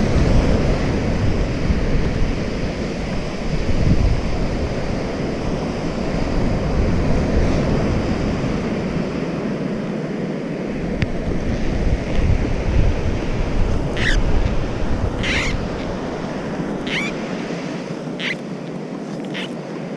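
Waves breaking on a beach, with wind buffeting the microphone. In the last few seconds several short, high sounds come through over the surf.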